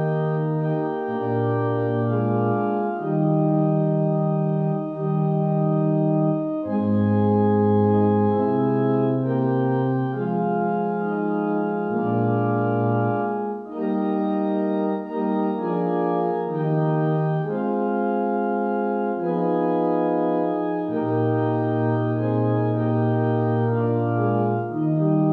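Organ playing slow, sustained chords over a moving bass line, the chords changing every second or two.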